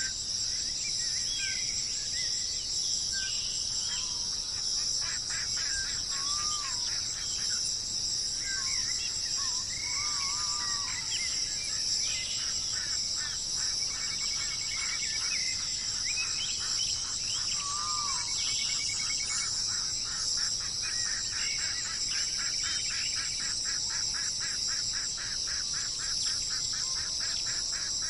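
Birds chirping and calling in short, sliding notes over a steady high drone of insects; in the middle a long run of rapid, evenly repeated notes goes on for several seconds.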